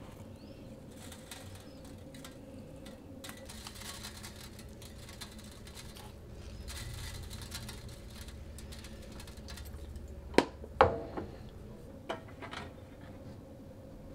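Kosher salt sprinkled by hand onto the scored skin of a raw pork shoulder: a soft rustling patter in several waves. About ten seconds in come two sharp clinks, then two lighter ones.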